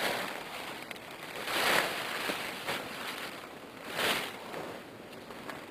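Dry fallen leaves and a plastic camouflage tarp rustling as the tarp is pulled about on the leaf litter, in three louder swells, the last about four seconds in.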